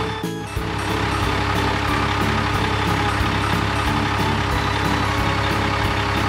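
Cartoon truck engine sound effect running steadily, under background music with a regular beat.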